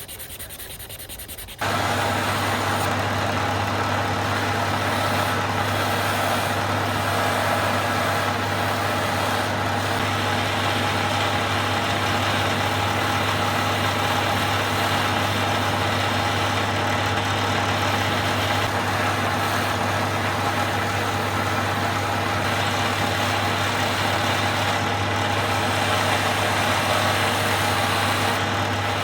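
Brief rubbing, then a motor-driven machine starts abruptly about two seconds in and runs steadily with a strong low drone.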